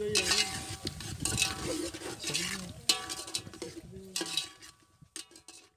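A long metal ladle stirs and scrapes potatoes in oily masala inside a large aluminium cooking pot, with repeated clinks of metal on the pot. The strokes thin out and fade near the end.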